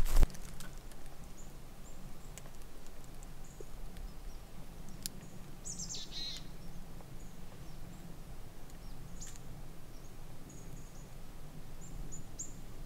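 Quiet forest ambience: faint, high, short bird chirps scattered through, with one quick downward-sweeping call about six seconds in, over a low steady rumble.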